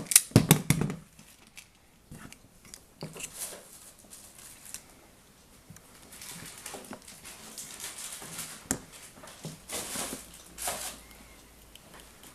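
Small plastic Molex connector and wires being handled: a quick cluster of sharp clicks and knocks about a second in, then scattered light clicks, rustles and scrapes.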